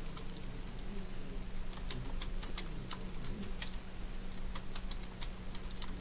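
Irregular clicking of a computer keyboard and mouse, short sharp clicks in loose clusters, as objects are picked and a command is typed. A low steady hum runs underneath.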